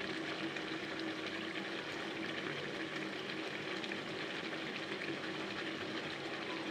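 Chicken and potato curry cooking on low heat in an open pan, a steady soft sizzle and bubbling: oil has separated from the meat and masala, the sign that the kosha is nearly done.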